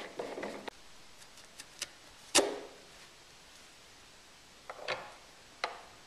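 Cat tree parts being handled during assembly: a sharp knock about two seconds in, then a few fainter knocks as a platform's threaded bolt is set onto a carpeted post.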